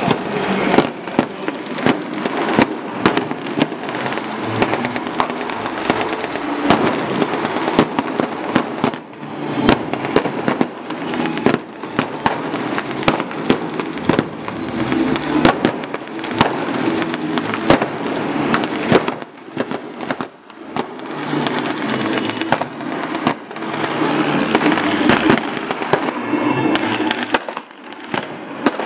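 Reenactment gunfire with blank cartridges: irregular single rifle shots, several in each few seconds, cracking out over a steady background of crowd noise.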